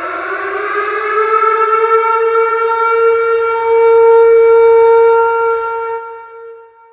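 Tornado warning siren sounding one wail: the tone rises in pitch over the first couple of seconds, then holds steady. It grows louder to a peak midway, then fades away near the end.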